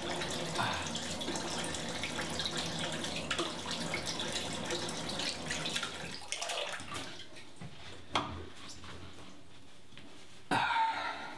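Bathroom sink tap running while cold water is splashed onto the face with cupped hands, for about six seconds; then the water stops. A single click about eight seconds in, and a brief louder noise near the end.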